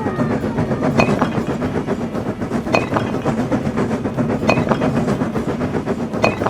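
Train running along the track: a steady rumble with a double clickety-clack of wheels over rail joints about every second and three-quarters.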